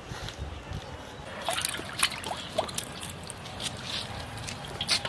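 Water splashing and dripping in a steel bowl as live catfish move in it: scattered small splashes and drips, with sharp slaps about two seconds in and again near the end.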